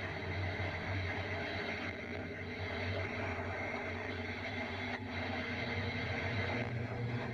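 Steady, low rumbling drone of a synthesized outer-space ambience, with held higher tones above it.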